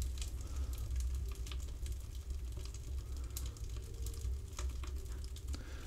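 Freshly lit wood fire crackling faintly inside the closed firebox of a Grill'D Cometa Vega sauna stove: scattered small crackles over a low steady hum.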